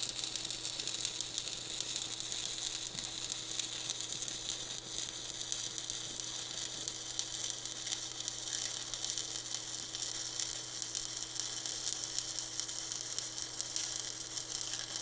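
Stick (shielded metal arc) welding arc burning on steel: a steady crackling sizzle that holds without a break, over a faint low hum.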